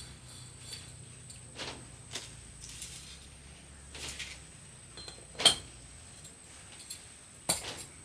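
Scattered clicks and knocks of tools and metal parts being handled during repair work. The two sharpest come about five and a half and seven and a half seconds in. Under the first half runs a faint low hum that stops about halfway.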